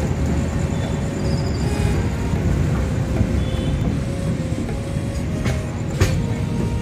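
Steady low rumble of a moving express train, heard from inside an air-conditioned passenger coach, with a single sharp knock about six seconds in.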